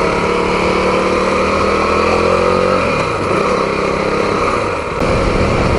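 KTM Duke 390's single-cylinder engine running while the motorcycle is ridden, heard over wind and road noise. About three seconds in, its steady tone drops away and the sound turns rougher and more noise-like.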